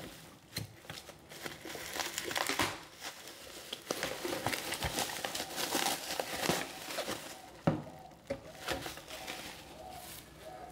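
Plastic bubble wrap crinkling and rustling as it is pulled off and peeled away from a boxed computer power supply, with a scatter of small crackles. A single sharper knock comes about three-quarters of the way through.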